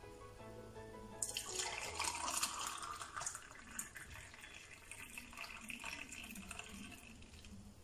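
Pineapple juice poured from a jug into a glass, a steady splashing pour that starts about a second in and stops just before the end, over faint background music.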